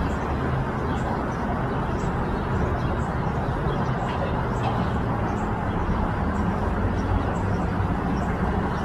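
Steady drone of boat and jet ski engines out on the water, with a continuous rushing noise and no change in level.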